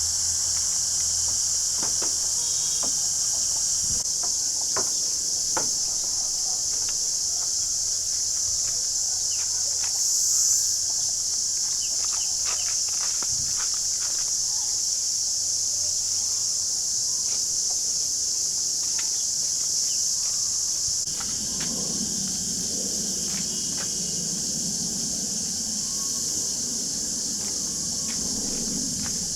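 Steady high-pitched buzzing of an insect chorus, with scattered small clicks and taps; about two-thirds of the way in, a low murmur joins.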